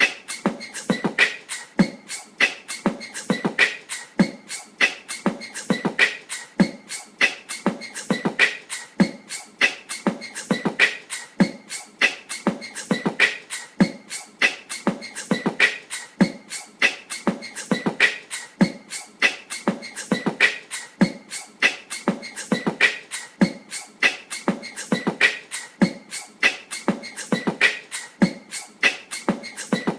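Ceiling fan wobbling out of balance, giving off a steady, rhythmic clicking and knocking: a loud knock a little more than once a second, with lighter clicks in between.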